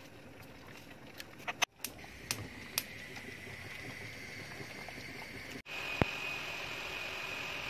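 Kitchen preparation sounds: a few light clicks and taps over a steady hiss, then a single sharp knock about six seconds in.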